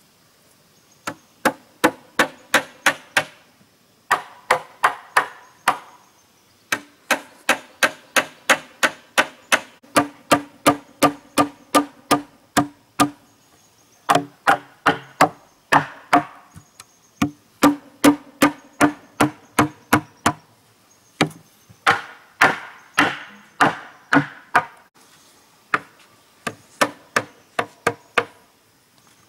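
Rapid, even blows of a hand tool on wood, about three a second, each with a short woody ring. They come in runs of several seconds, broken by brief pauses.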